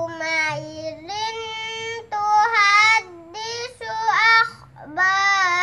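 A young girl chanting Quranic verses in Arabic, in the melodic recitation style of ngaji. Her high voice holds long, wavering notes, broken by short pauses into several phrases.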